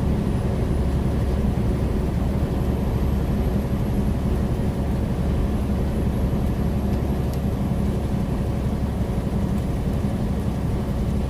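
Steady low drone of a loaded semi-truck's diesel engine and road noise at highway speed, heard from inside the cab.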